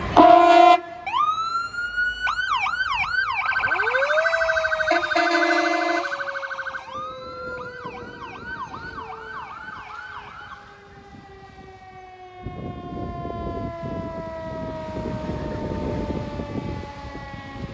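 Emergency vehicle warning devices: a loud air horn blast, then electronic sirens sweeping up into a wail and a fast yelp, with a second horn blast about five seconds in. A mechanical Federal Q2B siren spins up and then winds down in one long, slowly falling tone, while a low engine rumble comes in about two-thirds through.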